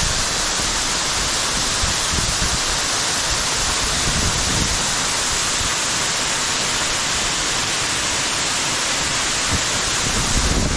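Underground waterfall: a steady, loud rush of falling water, with an uneven low rumble underneath.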